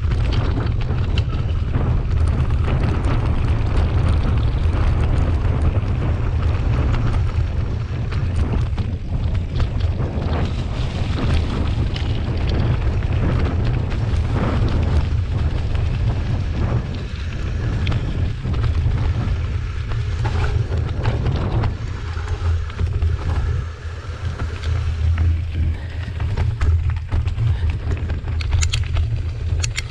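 Wind buffeting the microphone of a mountain bike's onboard camera during a fast descent, with the bike's knocks and rattles over rough dirt, roots and stones.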